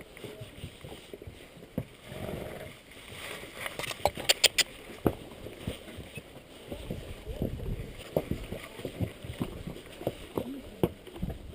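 Strong wind buffeting the microphone in uneven gusts, with a quick run of sharp clicks about four seconds in.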